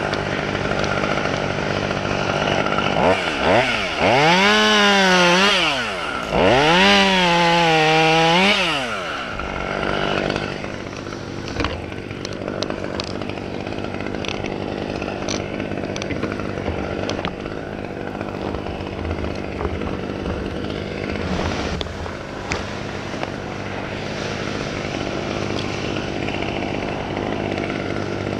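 Gas chainsaw idling, opened up to full throttle twice between about three and nine seconds in, its pitch rising and falling each time, then dropping back to a steady idle with a few light ticks.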